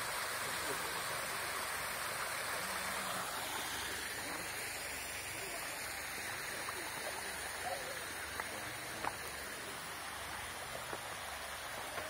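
Mountain stream running over a small rocky cascade: a steady rush of water that eases a little about three seconds in. In the second half, a few sharp clicks and knocks of footsteps on the stream-bed stones.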